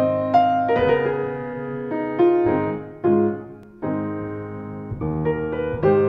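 Piano intro music: a slow melody of struck notes over held chords.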